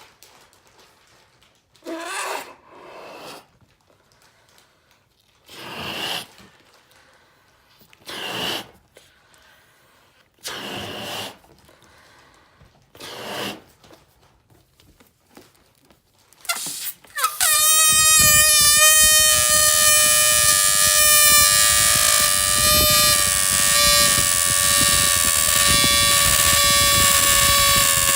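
Air let out of a large inflated balloon through its stretched neck: a string of short squeaky spurts, then from about two-thirds of the way in a long, loud, steady high squeal whose pitch sinks slowly.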